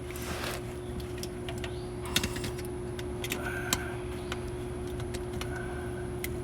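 Scattered light metallic clicks and taps as the oil strainer screen and its gaskets are handled under a VW Super Beetle's air-cooled engine, over a steady low hum.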